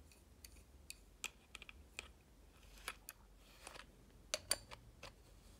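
Faint, irregular light clicks and taps of an adjustable wrench on the metal nozzle of a pull-down kitchen faucet spray head as the aerator end is turned.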